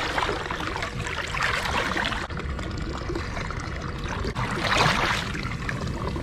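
Water splashing and trickling as a jewfish (mulloway) is held in the river to revive it, with a louder splash about five seconds in.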